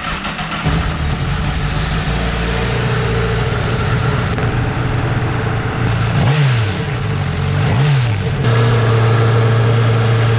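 Honda CBR1000RR's inline-four engine idling after being brought back to running from a non-runner. It is blipped twice, about six and eight seconds in, each rev rising and falling quickly, then settles to a steady idle.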